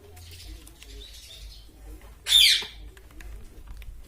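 Pet rose-ringed parakeet giving one loud, harsh screech a little over two seconds in, sliding down in pitch, over a faint low hum.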